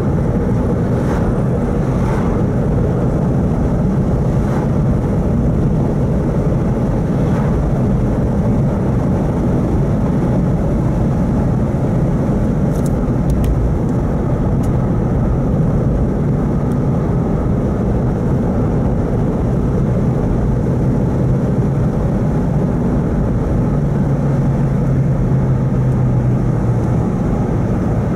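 A car driving at a steady pace, heard from inside: a continuous low rumble of tyres on asphalt and engine drone. A steady low engine hum stands out for a few seconds near the end.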